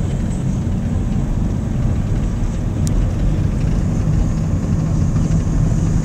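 A car driving along an asphalt road, heard from inside the cabin: a steady low rumble of engine and tyres.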